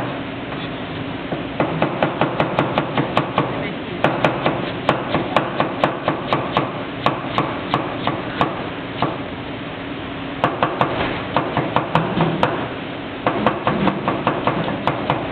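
Chinese cleaver slicing cabbage into fine shreds, knocking on a plastic cutting board in quick, even runs of about four strokes a second. There are short pauses about a second in and again around nine to ten seconds. A steady hum sits underneath.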